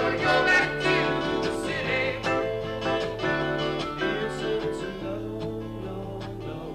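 Live band music: a man's sung line over guitar and bass in the first two seconds or so, then a guitar-led instrumental passage that grows quieter toward the end.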